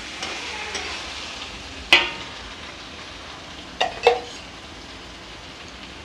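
Paneer and masala sizzling in a metal kadai while a metal spoon stirs them. The spoon knocks sharply against the pan once about two seconds in and twice in quick succession around four seconds.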